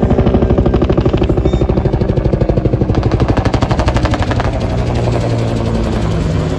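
UH-1 Huey helicopter flying low past, its two-bladed main rotor giving a loud, rapid, regular blade slap. About four seconds in, the slap gives way to a steadier rotor and turbine drone.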